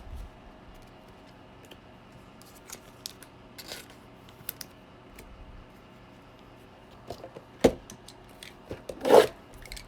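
Sporadic handling noises of trading cards and packs: faint scattered clicks, a sharp click about seven and a half seconds in, and a short rustle about nine seconds in.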